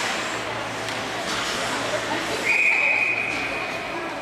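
Hockey referee's whistle blown once, a single steady high note starting about halfway through and held for nearly two seconds, over the murmur of voices in the rink.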